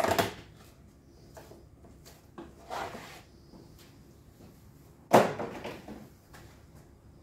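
A cardboard parts box being handled and opened. There is a knock at the start, a softer scraping rustle near three seconds, and a louder, sudden knock about five seconds in that fades over most of a second.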